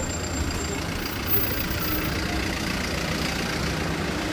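Vehicle engines idling in a line of stopped street traffic, with a minibus engine running close by. A short bump comes about a second in.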